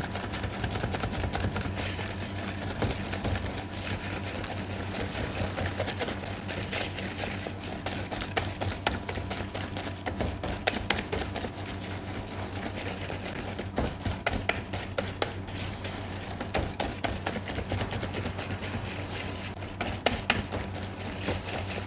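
Wire whisk beating egg yolks and sugar in a stainless steel bowl: a fast, continuous rattle of the wires clicking against the metal bowl, over a steady low hum.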